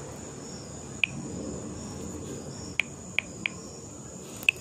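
A cricket chirping in short single chirps at irregular intervals, about five in all, over a steady high-pitched hum.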